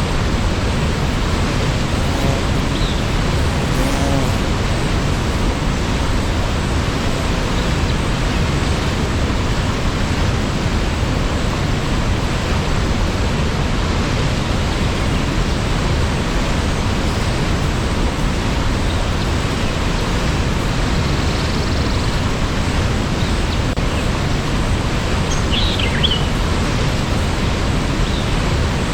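Waterfall rushing: a steady, dense roar of falling water that holds an even level throughout. Near the end a faint short high chirp rises above it.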